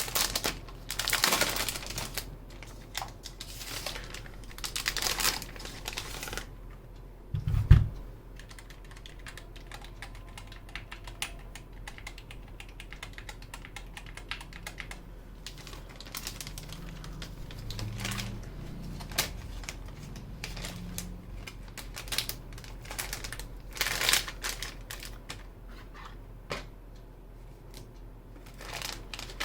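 Typing on a Skyloong SK61 60% mechanical keyboard with hot-swappable Gateron optical switches. There is a fast run of key clicks for about six seconds and a single low thump about eight seconds in, then sparser keystrokes with short flurries.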